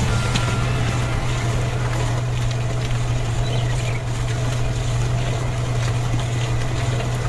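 A small motor running steadily with a low, even hum and a rough mechanical noise over it, cutting off suddenly at the end.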